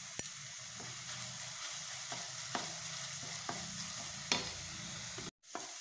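Chopped okra and onion sizzling in a stainless steel pan while a wooden spatula stirs in freshly added turmeric powder, with a short scrape or tap of the spatula against the pan every half second or so. The sound drops out for a moment near the end.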